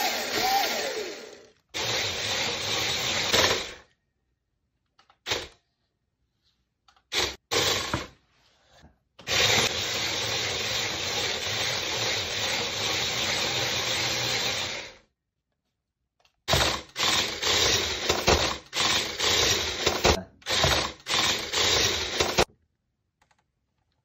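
Toy remote-control car's small electric drive motors and gearboxes whirring in stop-start bursts as its wheels are run: a few short bursts, one long steady run of about five seconds in the middle, then a quick series of short bursts near the end.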